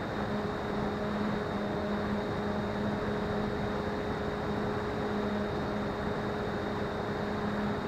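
Small electric motor and propeller of an FPV model plane running steadily at cruise power in flight, a steady hum under heavy rushing noise of wind and hiss.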